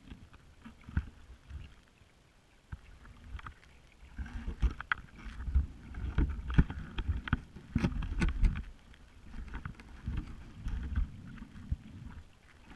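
Magnet-fishing magnet and rope heard underwater, knocking and dragging along the silty dock bottom: irregular low, muffled rumbles and bumps with a cluster of sharp clicks in the middle, after a quieter first couple of seconds.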